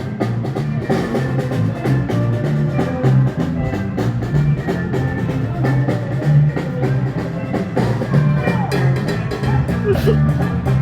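A street band playing live, with drums and percussion keeping a steady beat over a strong bass line.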